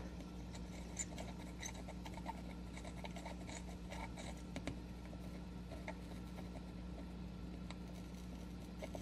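Faint scratching and small ticks of a Noodler's Boston Safety fountain pen nib drawing short strokes on paper, over a steady low hum.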